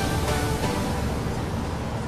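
Background music with held notes over a steady low pulse.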